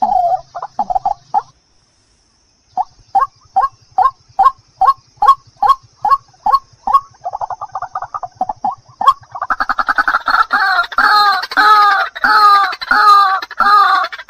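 White-breasted waterhen (ruak-ruak) calls, the bird's lure call. After a brief silence comes a run of short, evenly spaced notes that quicken. About two-thirds of the way in this breaks into a loud, fast, unbroken series of repeated calls.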